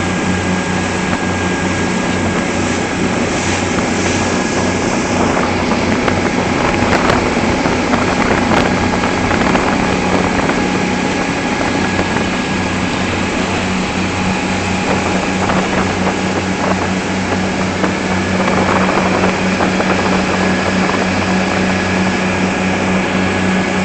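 Motorboat engine running at a steady cruising speed, with wind buffeting the microphone and water rushing past the hull.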